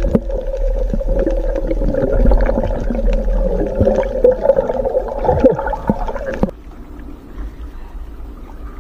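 Muffled underwater sound of net fishing at night: a steady hum with wavering tones and scattered knocks, which drops off suddenly about six and a half seconds in to a faint hiss.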